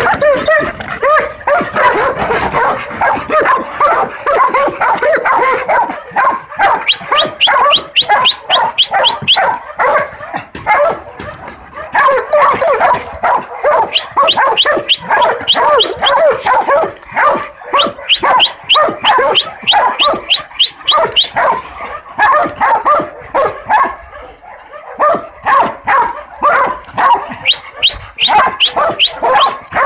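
Young hog dogs barking at a hog, holding it at bay: a rapid, continuous run of barks, several a second, with a short lull about three-quarters of the way through.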